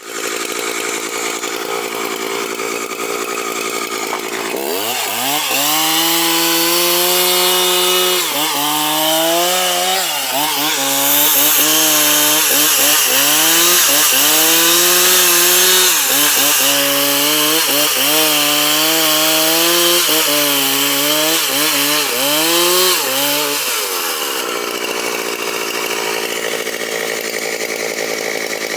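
Stihl two-stroke chainsaw cutting wood. About five seconds in it goes to full throttle, and its high engine note sags and picks back up over and over as the chain bites into the cut. Near twenty-four seconds it eases off to a steadier, lower running sound.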